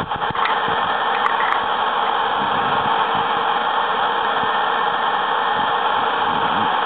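A steady, loud hiss with no distinct pitch, and a few light clicks in the first second and a half as a cardboard phone box is handled.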